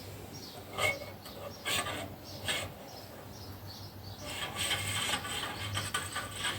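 Ducati 749S front-fork spring being lowered into the oil-filled fork tube. There are a few sharp knocks, then from about four seconds in a rasping scrape as the coils rub down the inside of the tube.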